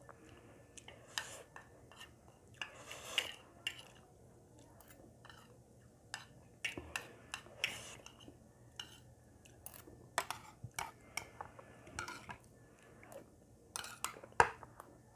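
A metal spoon scraping and clinking against a small saucer and a plastic bowl in scattered, irregular taps and scrapes. The sharpest click comes near the end.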